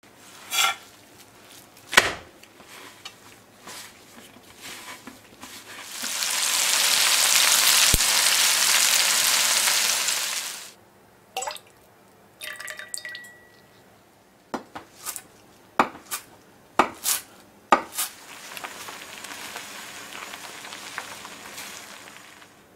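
Kitchen cooking sounds with no music: sharp knocks and clinks of utensils, then a loud steady hiss for about five seconds that cuts off. Scattered clinks follow, and near the end comes the softer steady sizzle of the egg and chicken simmering in the pan.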